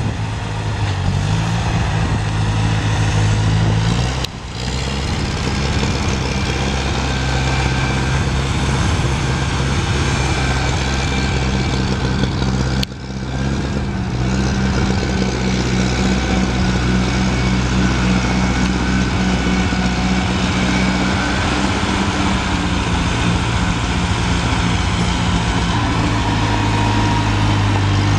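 Massey Ferguson 135 utility tractor's engine running steadily as the tractor drives about, a low, even engine note; the sound drops out briefly twice, about four and thirteen seconds in.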